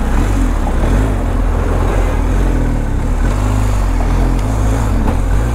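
BMW R 1250 GS Adventure's boxer-twin engine and road noise while riding, a steady loud rumble.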